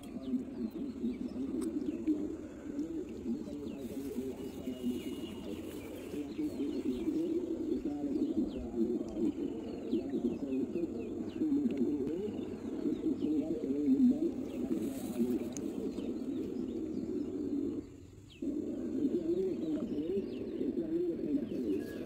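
Doves cooing over and over, many calls overlapping, with small birds chirping faintly above them. The cooing drops out for a moment about eighteen seconds in.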